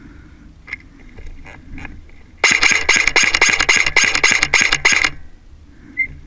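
Airsoft electric gun firing a sustained burst of about two and a half seconds, rapid shots over a steady gearbox whine, cutting off abruptly. A few separate light clicks come before it.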